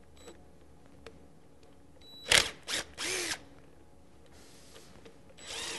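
Cordless impact driver run in several short bursts, its motor spinning up and winding down each time as it backs out the housing bolts on a rotary vane vacuum pump. A couple of light clicks come before the first burst.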